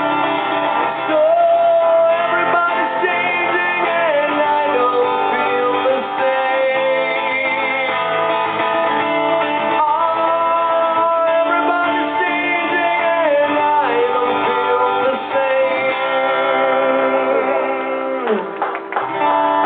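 Live music: a song with guitar and a singing voice, the melody held in long, wavering notes, one sliding down near the end.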